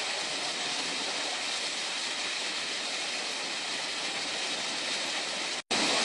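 Multnomah Falls plunging into its pool, a steady rushing roar of falling water. The sound cuts out for an instant near the end.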